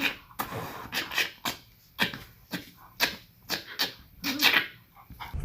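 A dog making a run of short, sharp, noisy sounds, about two a second.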